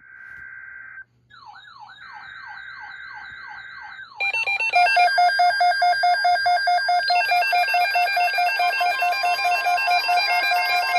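Electronic emergency alert tones from several devices overlapping. First come short buzzing data bursts and a warbling, sweeping tone. From about four seconds a loud many-toned alarm pulses about three times a second.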